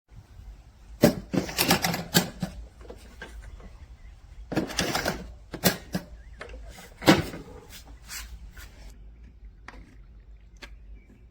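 Sharp clicks and clattering knocks of hard objects being handled: two busy clusters, about a second in and about four and a half seconds in, then single clicks spaced out, over a low steady hum.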